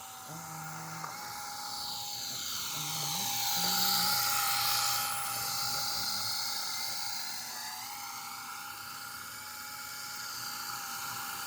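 Small battery-powered RC helicopter in flight: its electric motor whines at a steady pitch while the rotor noise swells and fades, loudest about four seconds in.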